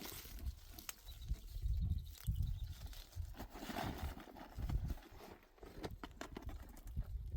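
Mule walking on rocky ground: irregular hoof steps with low thumps and scattered clicks of stones.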